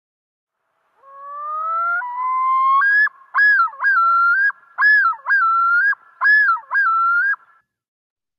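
Recording of a male common loon's yodel: a rising note from about a second in that climbs in two steps, then a run of repeated swooping phrases that stops a little before the end. It is an alarm call used only by male loons, typically in territorial defense.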